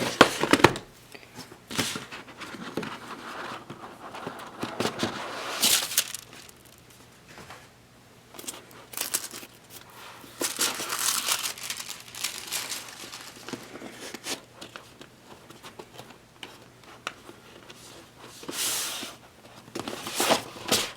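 A tablet's retail box being opened and unpacked by hand: irregular rustling, crinkling and tearing of packaging, with sliding swishes and light clicks and knocks.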